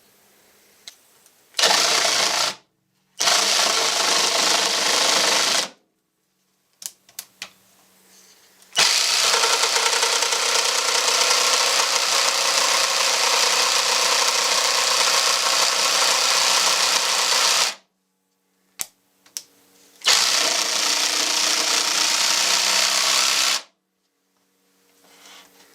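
Vonroc 20V cordless power tool run under load in four trigger bursts: a short one, one of a couple of seconds, a long run of about nine seconds, then a few more seconds, each starting and stopping abruptly. Light clicks of handling fall between the runs.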